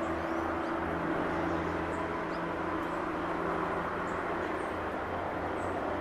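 A steady, low droning hum under an even hiss, with a few faint, short high-pitched chirps scattered through it.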